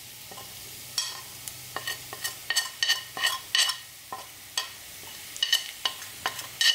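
A steel spoon scraping and tapping on a ceramic plate and the pot's rim as spice powders are pushed into the pot: a run of light, irregular clicks. Onions frying in oil sizzle faintly underneath.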